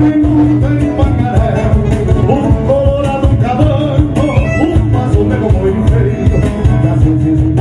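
Live southern Brazilian gaúcho folk music: strummed acoustic guitar with accordion and drums keeping a steady beat.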